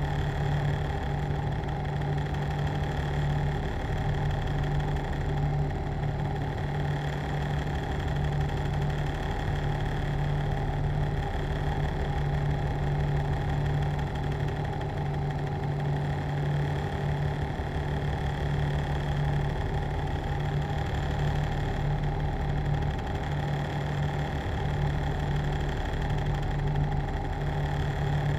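A machine running steadily: an unchanging mechanical hum with a strong low drone and fainter higher tones above it.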